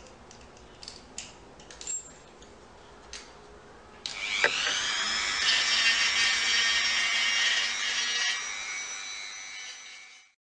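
Light clicks and taps, then, about four seconds in, a Dremel rotary tool switches on. Its whine rises quickly to a steady high pitch, runs for about six seconds while working the hard seed carpel, and cuts off at the end.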